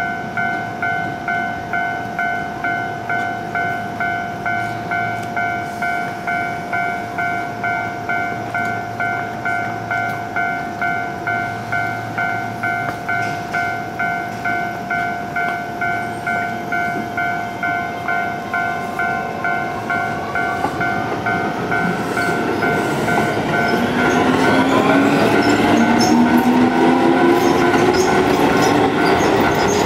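Japanese level-crossing warning bell ringing in an even, repeating two-tone ding. About two-thirds of the way through, a Keio Line electric train's traction motors start to whine, rising in pitch as it accelerates. Near the end the train runs through the crossing, wheels and rails loud.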